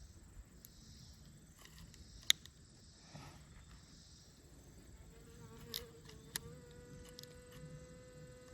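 A fly buzzing with a steady, even hum from about five seconds in. A sharp click a couple of seconds in is the loudest sound, with two softer clicks around six seconds.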